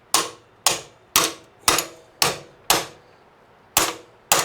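Hammer blows driving out the tight bottom mounting bolt of a KLR650's rear shock: eight sharp metal strikes about two a second, each with a short metallic ring, with a brief pause about three seconds in.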